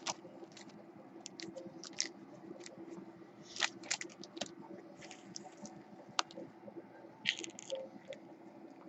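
Faint crinkling and rustling of plastic wrap being pulled off, with scattered light clicks and taps from a hard clear plastic card case being handled, over a faint steady hum.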